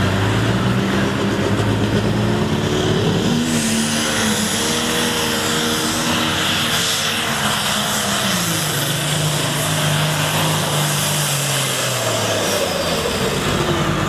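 Turbocharged diesel pulling-tractor engine running hard under load, its pitch climbing about three seconds in and falling back near eight seconds. A high whine rides over it while the pitch is up.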